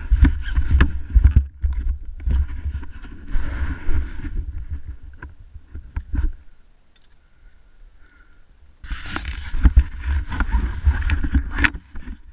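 Low rumbling and rubbing on a helmet-mounted action camera as the helmet is moved and jostled, with many sharp knocks on the mount and case. It goes quiet for a couple of seconds in the middle, then the rustling and knocking start again.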